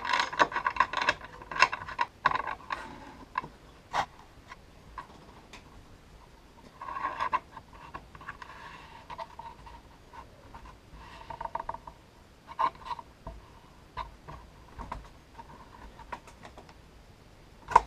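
A homemade wooden clamp handle being turned down a threaded steel rod to clamp a wood block onto a plywood table: irregular clicks, taps and short scraping spells of wood and metal against each other.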